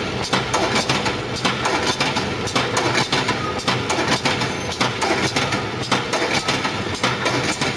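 Hinge joint field fence weaving machine running, a steady fast metallic clatter of many rapid clicks and knocks as it works the wire.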